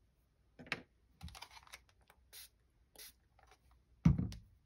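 Small taps, clicks and scratchy paper noises from fingers placing and pressing a torn piece of old comic-cover paper onto a cutting mat, with one louder thump about four seconds in.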